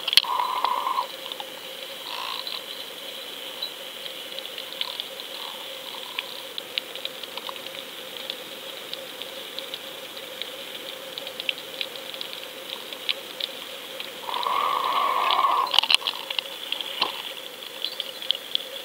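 Underwater sound picked up through a GoFish action camera's waterproof housing: a steady faint hum with many small irregular clicks and crackles, and a louder rushing patch about fourteen seconds in.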